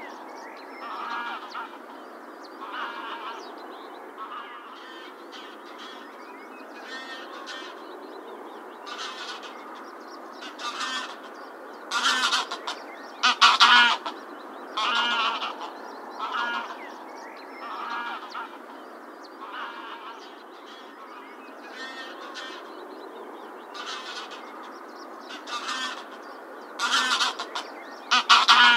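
Greylag geese honking, a short call every second or two over a steady background hiss, with the loudest calls about halfway through and near the end.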